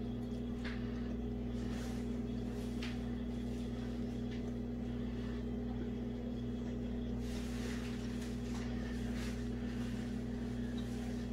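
A steady low hum runs throughout. Over it come a few faint soft clicks and mouth sounds of chewing a bite of Rice Krispie treat.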